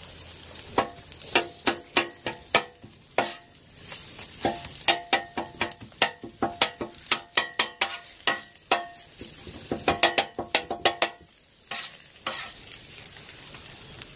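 Metal spatula chopping and scraping potatoes and turkey bacon on a Blackstone 17-inch steel griddle top: quick clacking strikes in irregular clusters, each with a short metallic ring, over the steady sizzle of food frying. The strikes stop near the end, leaving the sizzle.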